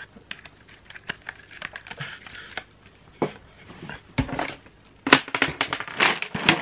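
Irregular clicks, taps and knocks of small plastic toys being handled close to the microphone, sparse at first and coming thicker and louder from about four seconds in.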